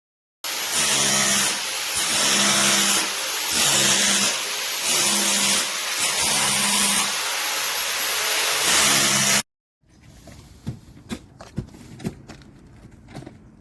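ENEACRO SDS-Plus rotary hammer drill running into concrete, loud and in surges about once a second, cutting off abruptly about nine seconds in. Faint scattered knocks follow.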